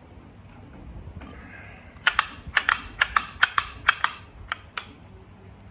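About ten sharp clicks and taps in quick, uneven succession, from hands and a tool handling metal parts at the front of a Jack five-thread overlock sewing machine.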